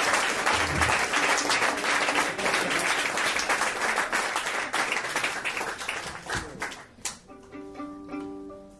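Pub audience applauding at the end of a set, the clapping thinning out and stopping about seven seconds in. Near the end, a few faint held notes from an instrument.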